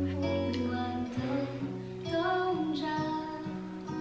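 Background music: a song with singing over acoustic guitar.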